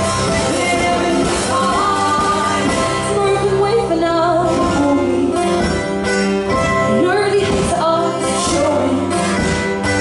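Live acoustic folk music: a mandolin and an acoustic guitar played together, with women singing into microphones.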